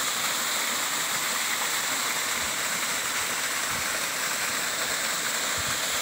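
Waterfall pouring down a rock face into a plunge pool: a steady rush of falling, splashing water.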